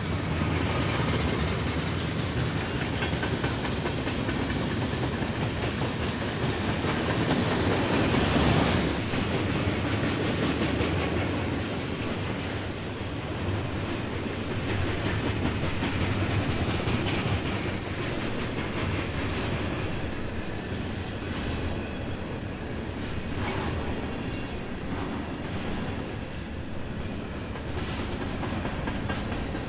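A freight train's cars rolling past: a steady rumble of steel wheels on rail with clickety-clack over the rail joints. It is loudest about eight seconds in, then eases off a little, with sharper clicks later on.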